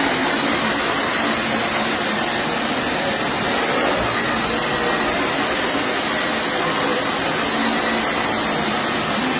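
Dyson Ball Animal 2 upright vacuum cleaner running steadily, a loud rush of air with a steady high whine on top.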